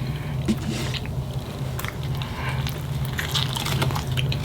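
Close-up wet chewing and biting of a California burrito stuffed with steak, cheese, fries and sour cream, with soft mouth smacks and squishes, over a steady low hum.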